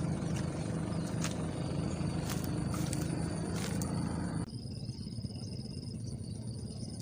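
A steady low motor drone with a few scattered clicks, which cuts off abruptly about four and a half seconds in. After that a faint, high, thin tone comes and goes over quieter background.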